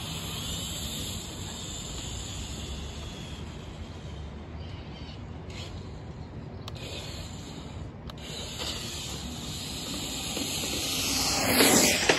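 Brushless-motor Traxxas TRX-4 RC truck driving on pavement, its motor whine gliding up and down under a steady hiss, then getting louder and peaking as it passes close near the end.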